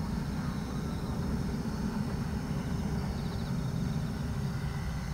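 Boeing 747-400 jet engines, four Pratt & Whitney PW4056 turbofans at approach power, passing low overhead with a steady, deep rumble.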